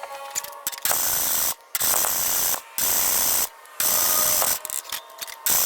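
Aerosol spray paint can sprayed in five short bursts of hiss, each under a second, the last starting near the end.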